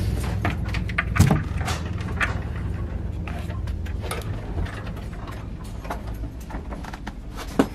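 Wooden wardrobe doors being pulled open, with a series of short clicks and knocks from the handles and hinges, the loudest about a second in, over a steady low hum.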